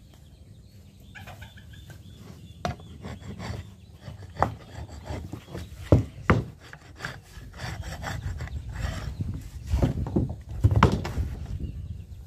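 Wood knocking and scraping as a heavy timber beam is handled and shifted on a wooden plank. The knocks come at irregular moments, and the loudest are about halfway through and near the end.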